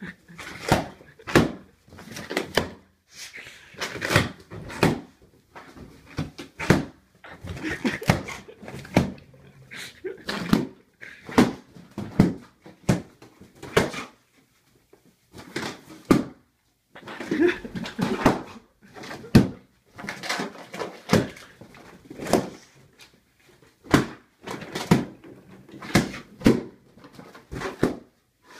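Pit bull biting into balloons: a long run of loud, sharp balloon pops, about one or two a second with a couple of short pauses, mixed with rubbing and squeaking of the balloons and the dog's own noises.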